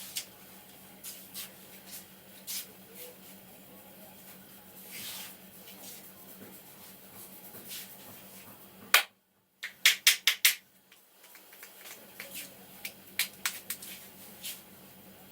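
Hands at work in a barber's head massage: scattered light clicks and taps, then a loud crack about nine seconds in, followed shortly after by a quick run of about five loud sharp snaps.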